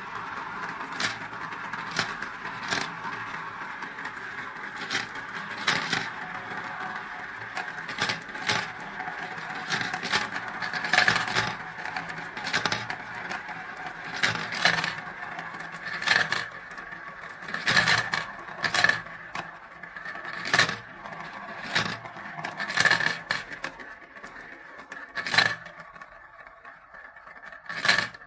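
Plastic balls rolling and spinning around transparent plastic marble-run funnels: a steady rolling whir with frequent sharp clacks as balls drop into the tubes and strike the plastic and each other. The rolling thins out and quietens over the last few seconds as fewer balls are left, with one last clack near the end.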